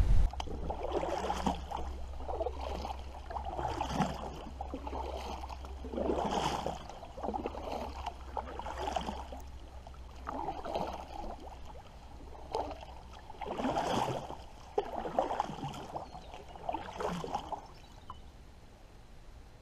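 Double-bladed kayak paddle dipping into lake water, stroke after stroke on alternate sides, each with a splash and drip about every second or so; the strokes stop near the end.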